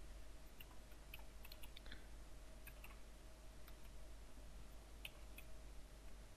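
Faint, scattered clicks of a computer keyboard and mouse, in two small clusters, over a steady low electrical hum.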